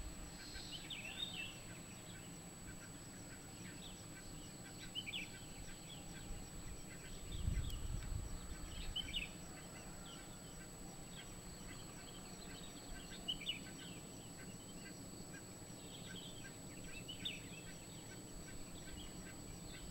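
Birds chirping and calling at dawn in short, scattered bursts, with a brief low rumble of wind on the microphone about halfway through.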